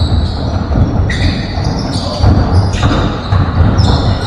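Basketball being dribbled and bounced on a gym court during a game, with a repeated thudding of the ball in a large hall.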